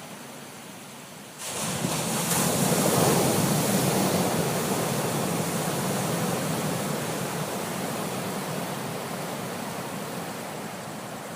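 Ocean waves: a wave breaks suddenly about a second and a half in, and its surf rushes on and slowly fades.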